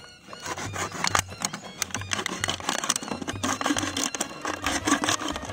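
A knife sawing through a thin plastic water bottle, the plastic crackling and clicking rapidly as the blade works through it.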